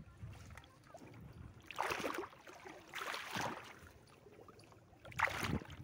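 Shallow river water sloshing and splashing as a bamboo-framed push net is shoved through it among floating water hyacinth, with three louder swishes about two, three and five seconds in.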